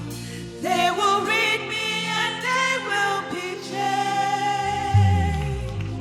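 Gospel choir singing with band accompaniment: long, held sung notes with vibrato over a bass line, with a low bass note rising near the end.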